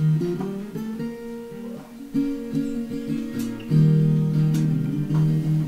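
Background music: an acoustic guitar strummed and plucked, its notes changing steadily.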